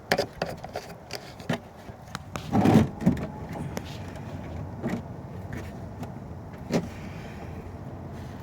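Scattered light clicks and knocks of tools and metal parts being handled during an oil change, with one louder, heavier knock near three seconds in.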